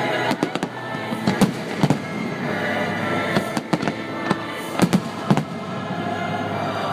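Firework shells bursting in an irregular run of sharp bangs, some in quick clusters, over continuous show music.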